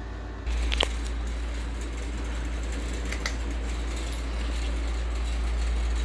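Ceiling fan running, its moving air rumbling steadily on the microphone with a hiss; the sound jumps suddenly louder about half a second in, with a couple of faint clicks.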